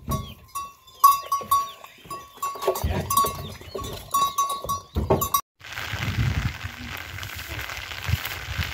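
Pigs grunting and calling while they feed at a wooden trough, among short repeated tonal notes and clicks. About five and a half seconds in, this gives way to a steady hiss.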